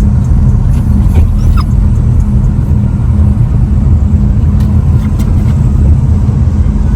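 Loud, steady low rumble of a car driving.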